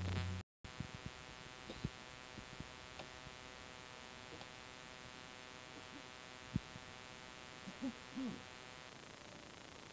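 A faint steady hum made up of many even tones, with a few scattered clicks and two short low sounds near the end. The sound cuts out completely for a moment about half a second in.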